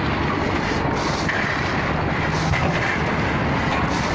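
Steady rumble of a truck engine running, with wind buffeting the microphone and shovels working gravel on the truck bed.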